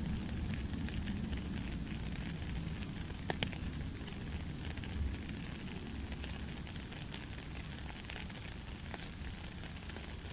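Steady rain falling, a dense patter of drops over a low rumble, with a couple of sharper drop clicks about three seconds in.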